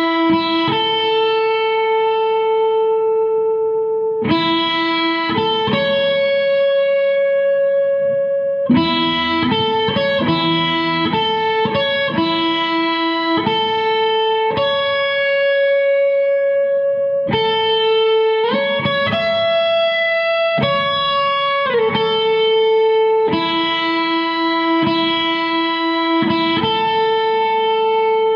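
Gibson Les Paul electric guitar playing a slow melody of long sustained single notes, each ringing for a few seconds, with a couple of notes bent up or down in pitch.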